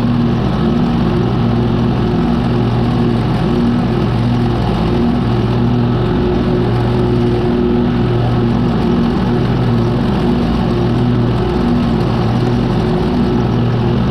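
Exmark Turf Tracer walk-behind mower's engine running steadily while cutting grass, with a low hum that comes and goes every couple of seconds.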